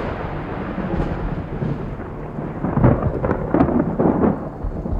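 Thunder rumbling over steady rain, with a louder run of crackling peals about three to four seconds in.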